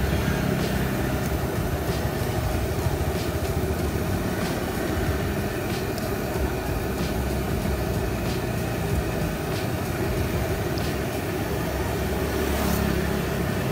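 Batagor dumplings deep-frying in a wok of hot oil, sizzling steadily, with metal tongs clicking against the pan every second or so. A steady low rumble runs underneath.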